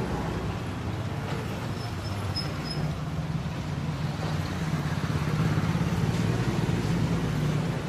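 Small single-cylinder two-stroke motorcycle engine of a Yamaha RX 135 running at idle with a steady pulsing note, getting somewhat louder over the last few seconds.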